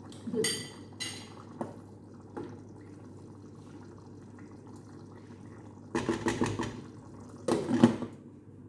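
Stainless-steel cooking pot and its metal lid clinking, with a couple of short ringing clinks near the start, then two louder bursts of clatter about six and seven and a half seconds in as the lid is set on the pot.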